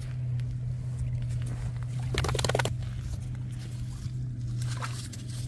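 A brief animal call, about half a second long, roughly two seconds in, over a steady low hum; a short faint chirp follows near the end.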